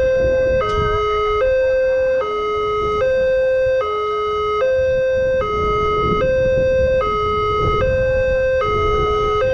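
Multec railway level-crossing siren sounding its warning for an approaching train: a loud two-tone call that alternates between a higher and a lower note, switching about every 0.8 s, over a low rumble.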